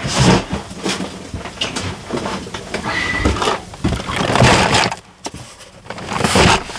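A large cardboard box of toys, wrapped in plastic film, being handled and slid onto a table: irregular scraping and crinkling rustles with a few knocks, loudest about four seconds in and again near the end.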